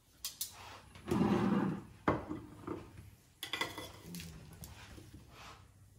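Metal serving tongs clinking and scraping against ceramic plates while food is plated, and a plate set down on a wooden counter: several separate clatters, the loudest about a second in, with a sharp click about two seconds in.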